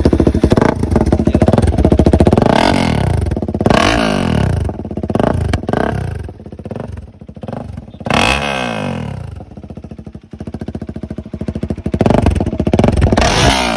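KTM RC 390's single-cylinder engine through an aftermarket dual-barrel exhaust, idling and blipped several times, each rev rising and falling back to idle; very loud.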